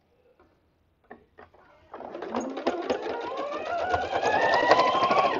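Janome electric sewing machine stitching fabric. After a couple of quiet seconds with a few light clicks, the motor starts and speeds up with a rising whine and rapid needle strokes, then stops suddenly at the end.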